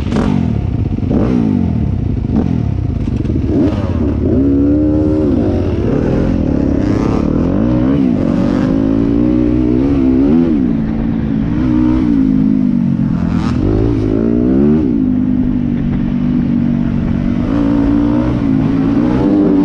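Yamaha WR250F's 250 cc single-cylinder four-stroke engine with an Akrapovič exhaust, revving up and down several times and running steadier in the last few seconds. Scattered knocks and clatter sound over it.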